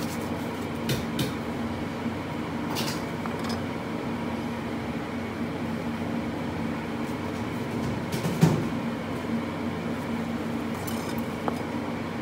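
A steady low kitchen hum, with a few sharp knocks of a knife and handling on a plastic cutting board as a banana-leaf-wrapped pork roll is cut and unwrapped. The loudest knock comes about eight and a half seconds in.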